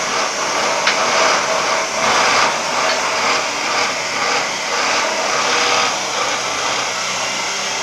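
Steady loud whirring noise like a power tool's motor running, swelling and easing slightly.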